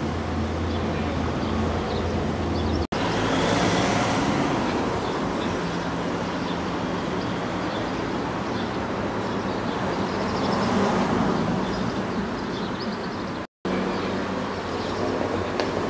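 Street ambience with road traffic: a steady low engine hum for the first few seconds, then a wash of traffic noise that swells twice, broken by two brief dropouts, one about three seconds in and one near the end.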